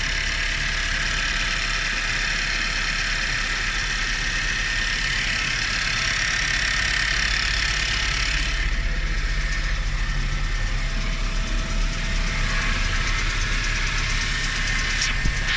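Nissan Juke's engine running steadily, with a constant high-pitched tone over it: the weird noise that the owner can't pin down.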